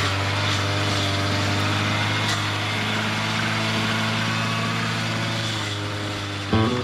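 Small engine of a grass cutter (brush cutter) running at a steady speed. Acoustic guitar music comes in near the end.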